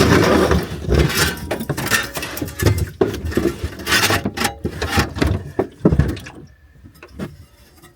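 Clattering and knocking of hard objects being handled, a dense run of short knocks and clinks that dies down near the end.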